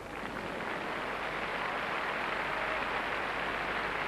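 Arena crowd applauding, an even hiss of many hands that grows a little louder in the first second and then holds steady.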